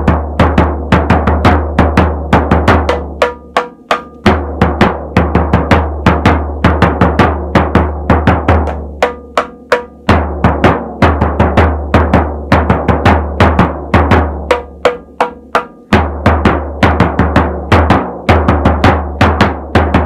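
A big frame drum and a small frame drum struck with a felt-headed mallet in a quick, steady beat. The big drum's deep, ringing low tone carries most of the time, switching about every five seconds to a second or so on the small, high-pitched drum.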